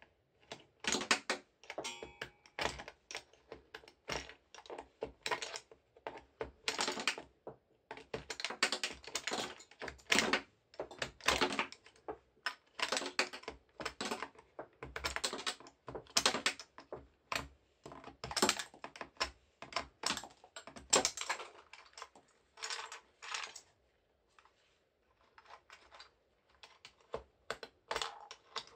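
Keycaps being pried off a computer keyboard with a small flat-blade screwdriver: clusters of sharp plastic clicks and snaps as each cap pops free and drops. There is a short lull a few seconds before the end.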